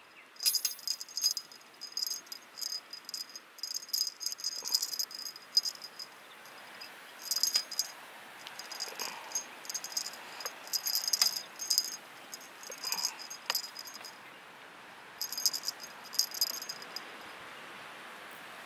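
A small jingle bell on a string cat toy jingling in irregular bursts as a kitten bats and grabs the felt ball hanging from it.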